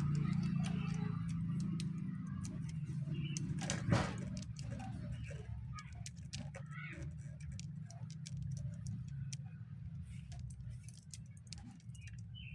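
Small metallic clicks and jangles of chainsaw parts and tools being handled during assembly, with one louder click about four seconds in, over a low steady hum that slowly fades.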